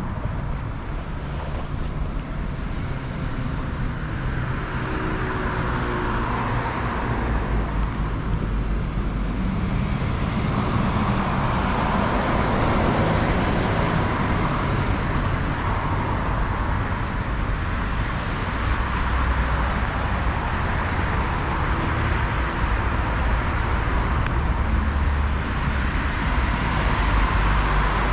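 City street traffic: cars passing one after another, their tyre and engine noise swelling and fading over a steady low rumble.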